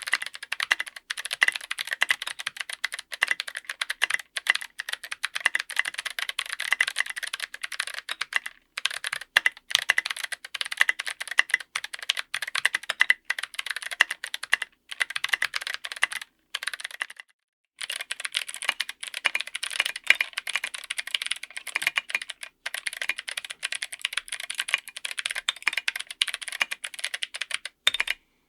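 Fast, continuous typing on a mechanical keyboard, keys clacking in rapid runs broken by a few brief pauses.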